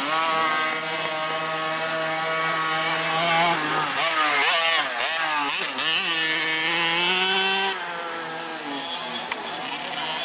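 Motocross bike engines revving. Their pitch is steady at first; in the middle several engines overlap, their pitches sweeping up and down as the riders work the throttles. The sound gets somewhat quieter about three quarters of the way in.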